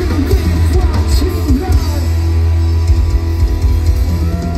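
Live rock band playing through a loud stage PA: electric guitars over bass and a drum kit, with a heavy, steady bass.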